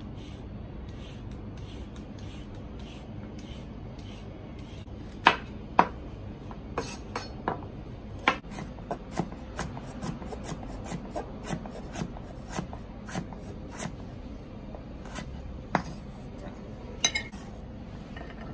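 A vegetable peeler scrapes along a carrot in short, repeated strokes. Then a kitchen knife chops the carrot on a wooden cutting board, in sharp knocks about two a second, with a few louder blows.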